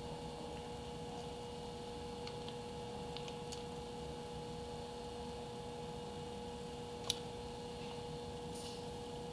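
Steady electrical hum holding two fixed tones, with faint scattered ticks and one sharp click about seven seconds in.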